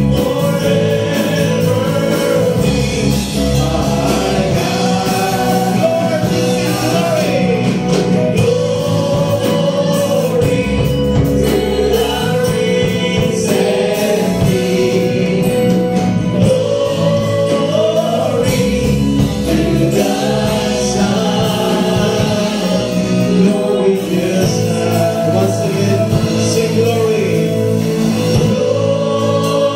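Live church worship band playing a praise song: singing led from the stage over electric guitar, keyboard and drums, with many voices singing together.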